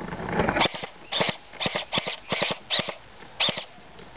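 A series of about nine short, sharp clicks or pops, irregularly spaced and coming in quick succession over about three seconds.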